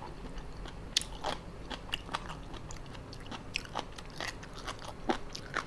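Close-up chewing of spicy seafood papaya salad: a run of small, irregular crisp crunches and wet mouth clicks, a few to the second.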